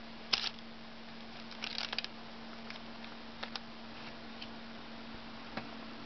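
Short rustles and crackles of hands handling freshly baked butter rolls on a paper-lined baking tray: one about half a second in, a small cluster near two seconds, then a few faint ticks. A steady low hum and hiss sits under it all.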